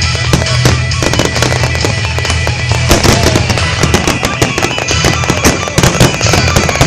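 Fireworks display: aerial shells bursting in quick succession with crackling, several bangs a second, over music.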